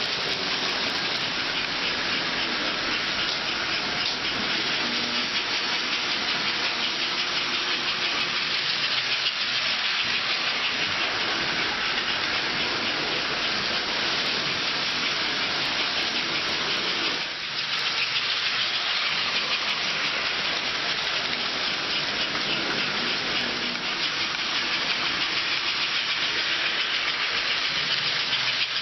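Toy electric trains running on the layout's track: a steady hissing, whirring noise with a fine fast rhythm, dipping briefly about two-thirds of the way through.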